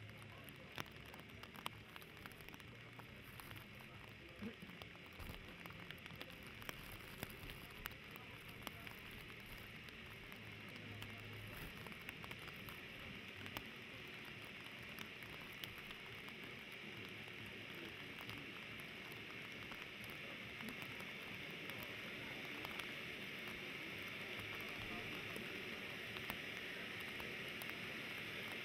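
Triplex TXF566 'Rain' ground fountain firework burning: a steady spraying hiss with scattered sharp crackles, growing louder as the spark column builds.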